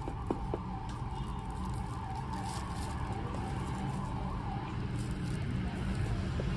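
Street traffic rumble from passing motor vehicles, growing slowly louder, with a few light clicks near the start.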